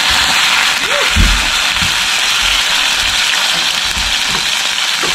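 Bread frying in coconut oil in a pan, sizzling steadily, with a few dull knocks of the pan or utensil about a second in and near the end.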